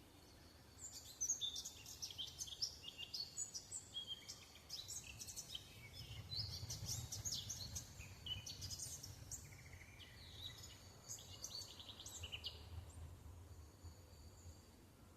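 Songbird singing a long, busy song of rapid, high chirps and short trills. It starts about a second in and thins out near the end.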